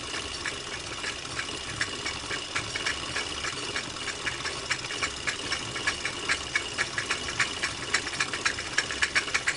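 Steady mechanical running with regular sharp clicking, a few clicks a second, over a constant high whine and a low hum. The clicks grow louder and come quicker near the end.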